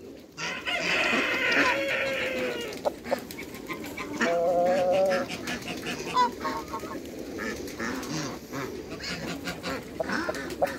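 Domestic geese honking in a poultry pen, with a loud, wavering call about four seconds in and scattered shorter calls from the other fowl.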